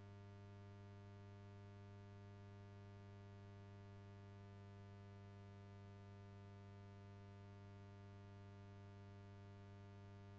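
Near silence: a faint, steady low electrical hum.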